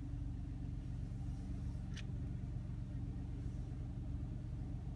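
2015 Mitsubishi Mirage's three-cylinder engine idling steadily, heard from inside the cabin as a low hum. A single short click about two seconds in.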